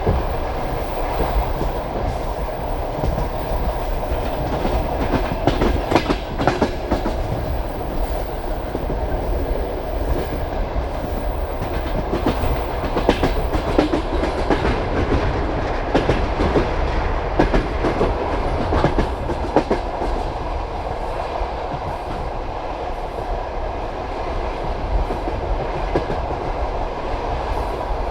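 Passenger train carriage running at speed: a steady rumble of wheels on rail, with a clickety-clack of wheel knocks as the bogies cross rail joints, coming in irregular clusters.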